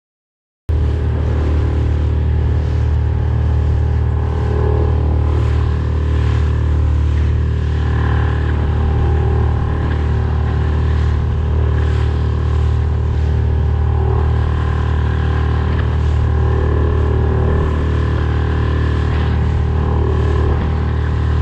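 Yamaha 6 hp outboard motor running steadily under way, a constant loud drone with water and wind noise over it, cutting in abruptly about a second in.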